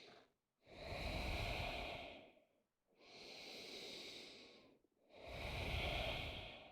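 A person breathing slowly and deeply, close to the microphone: three long breaths of about one and a half to two seconds each, alternating louder and softer, with short pauses between them.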